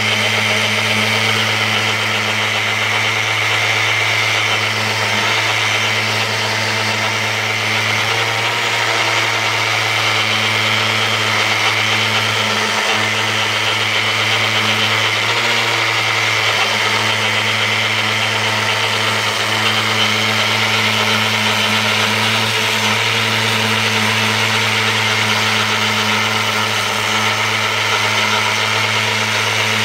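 Festool Rotex sander running steadily, its spinning pad sanding old paint off a wooden post.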